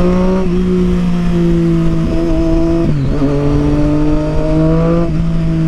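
Triumph Street Triple 675's inline three-cylinder engine through a Yoshimura aftermarket exhaust, pulling under steady throttle with its pitch slowly rising. About three seconds in, a gear change drops the pitch before it climbs again.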